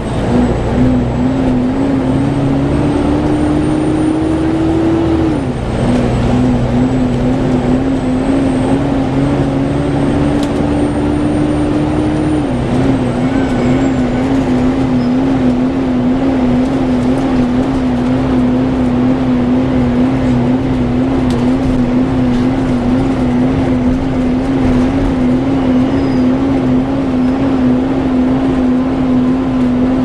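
Volvo B7TL bus engine cooling fan making a loud, weird hoover-like warbling whine, heard from inside the bus over the diesel engine running. The whine climbs slowly in pitch and drops back twice, about five seconds in and again about twelve seconds in, then holds a lower, wobbling pitch.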